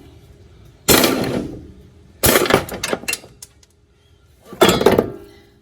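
Loud metallic clunks and clatter, in three separate bursts about a second in, around two to three seconds in, and near the end, the last one ringing briefly, as the last top nut of a car's front strut comes off and the strut falls loose.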